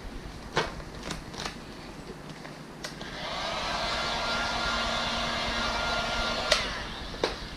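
A few small clicks and taps of handling, then a hot-air blower switched on about three seconds in, its fan spinning up to a steady run with a faint whine, and cut off after about three and a half seconds with a click. The hot air softens the automotive vinyl wrap so it can be stretched over the plastic's curves.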